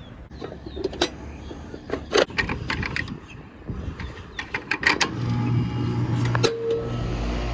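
A run of clicks and knocks, then about five seconds in a motor starts and runs with a steady low hum.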